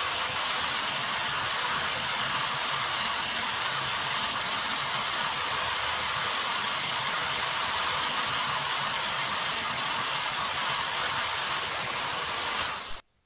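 Electric drill spinning a wire wheel brush while a small round metal part is held against it to clean it: a steady motor whine with the hiss of wire bristles scrubbing the metal. It stops abruptly near the end.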